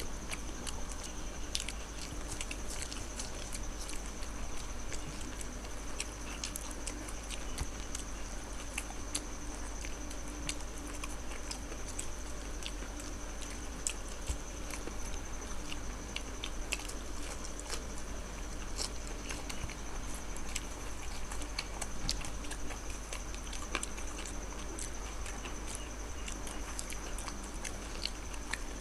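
Close-up chewing and biting of crumb-fried egg devils, with many small irregular crunchy clicks and mouth sounds.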